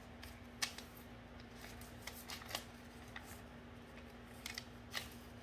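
Sheet of origami paper crinkling and rustling faintly as it is folded in half and creased by hand, in a scatter of soft crackles.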